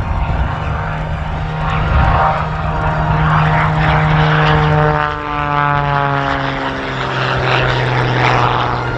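Single-engine aerobatic propeller plane at full power making a low, fast pass. Its engine and propeller note drops in pitch as it goes by, about halfway through.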